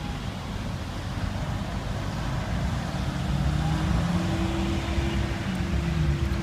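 A motor vehicle passing on a nearby road: a low engine hum grows louder about halfway through and eases near the end, over a steady rush of traffic and outdoor noise.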